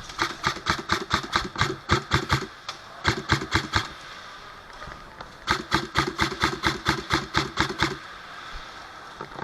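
Airsoft gun firing three full-auto bursts: rapid, evenly spaced clacking shots over a steady motor whine that starts and stops with each burst. The second burst is short; the first and third last a couple of seconds each.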